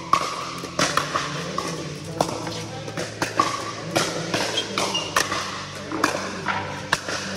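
Pickleball paddles popping against the hollow plastic ball, with the ball bouncing on the court, a sharp knock every half second or so, each echoing in a large hall.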